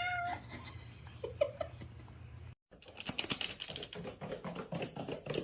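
A cat's meow trailing off, then, after a brief break, a quick run of light clicks and taps.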